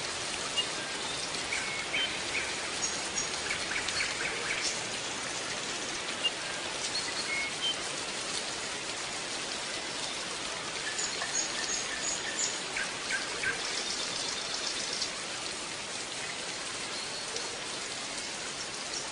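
Small birds chirping in short, high notes, busiest about two-thirds of the way through, over a steady background hiss like rain.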